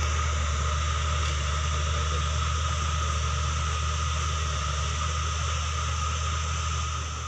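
Bulldozer's diesel engine running steadily, a constant low drone under an even hiss.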